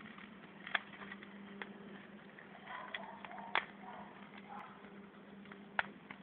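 Wood fire crackling under a new plow disc that is being burned in, with a few sharp pops from the burning sticks over a faint steady hum.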